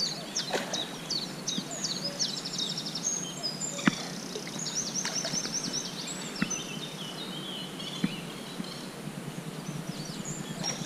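Several songbirds singing, with short whistled phrases and fast trills overlapping throughout. A few sharp clicks stand out about four, six and a half and eight seconds in.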